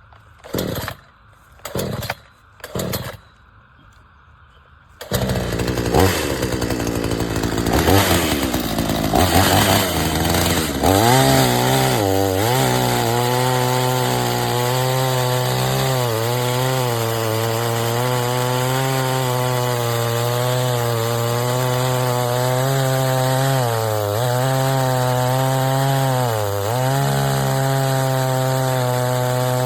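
Three short, loud bursts as a BILT HARD 46cc two-stroke gas chainsaw is pull-started. The engine catches about five seconds in and revs unevenly. It then runs steadily under load, cutting through a large log, with its pitch dipping briefly a few times as the chain bogs in the wood.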